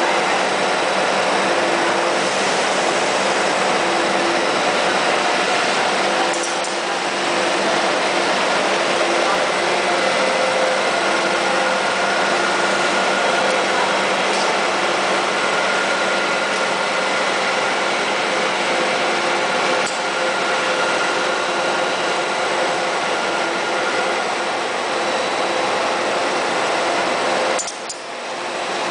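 Plastic molding machine running steadily: an even mechanical noise with a constant hum, briefly dipping in level near the end.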